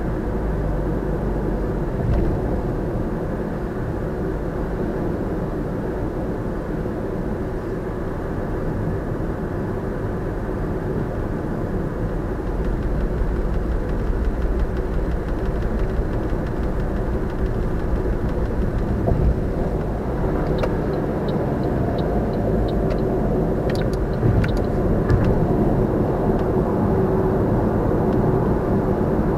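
Steady road and tyre noise with engine hum inside a car's cabin at expressway speed. A few faint ticks come about two-thirds of the way in.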